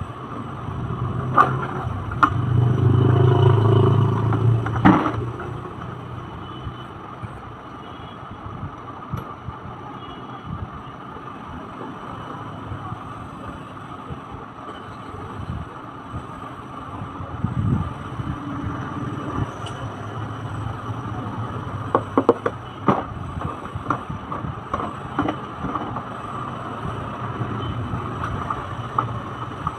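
Plastic knocks, scrapes and clatter as a plastic ride-on toy car is handled, tipped over on a tile floor and has its wheels fitted, with a rumbling scrape a couple of seconds in and scattered sharp knocks, over a steady background hum.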